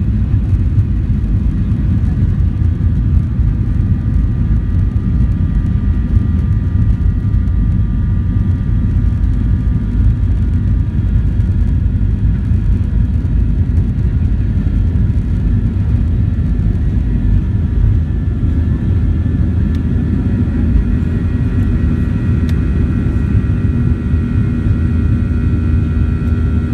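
Cabin sound of a Southwest Boeing 737-800 on its takeoff roll: jet engines at takeoff thrust give a steady whine over a heavy low rumble. The engine whine grows stronger over the last few seconds as the plane lifts off.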